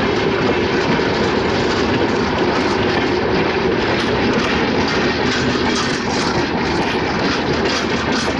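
Bangladesh Railway intercity passenger coaches running past close by: a steady, loud noise of steel wheels on the rails.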